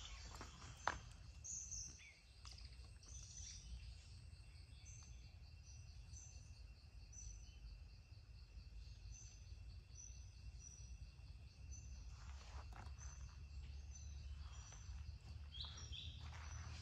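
Faint forest ambience: a bird gives short, high chirps over and over above a steady high insect drone. A few footsteps on a dirt path are heard about a second in and again in the last few seconds.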